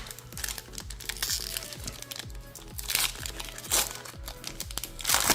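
Foil booster pack wrapper crinkling as it is handled and opened, louder crackles about three seconds in and near the end, over background music with a steady beat.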